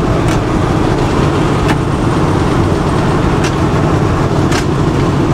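1969 Ford F100's small-block Windsor V8 running steadily while driving, heard from inside the cab over road and tyre noise. A few short knocks come through about every second or two.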